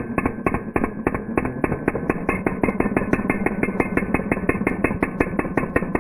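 Slowed-down sound of a cordless hammer drill in hammer mode, its masonry bit pounding into a block of concrete: a deep, evenly spaced knocking, about six blows a second, as the bit drives in and out against the stone.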